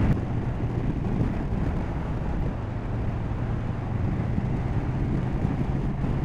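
KTM motorcycle engine running steadily at low road speed, heard from the rider's seat, with a steady low engine hum.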